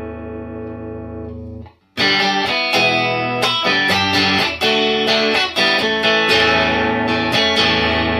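Clean electric guitar through an amp, with no pedal. A chord rings out and is cut off just before two seconds in; then the same short riff starts again, mixing strummed chords and picked notes. It is a pass of a bass contour knob demonstration, with the knob stepped a quarter turn between passes.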